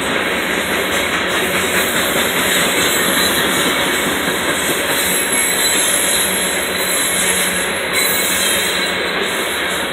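Coal cars of a Union Pacific freight train rolling past close by: a steady, even noise of steel wheels on rail.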